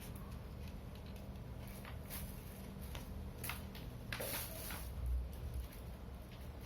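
Faint scattered clicks and rustles of hands handling a laptop and its charger plug, over a low steady hum that stops a little past halfway.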